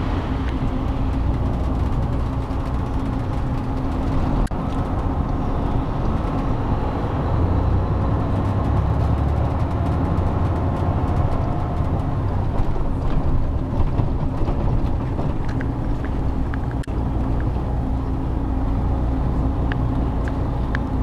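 Steady engine and road rumble inside a moving bus, with a faint steady hum and a few light clicks.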